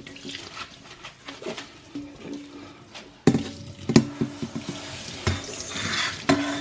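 Washing at a kitchen sink: water running from the tap, with sharp knocks of things handled in the sink, the loudest about three and four seconds in.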